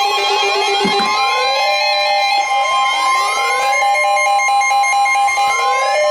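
Emergency Alert System attention signal: a loud, steady two-tone alarm, overlaid with repeated rising siren sweeps and music.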